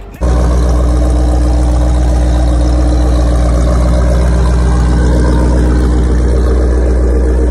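Jeep Grand Cherokee Trackhawk's supercharged 6.2-litre V8 idling steadily, loud and deep through its quad exhaust tips.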